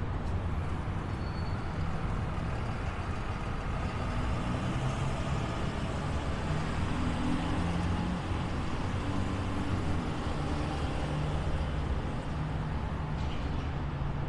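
Street traffic: a steady low rumble of road vehicles running.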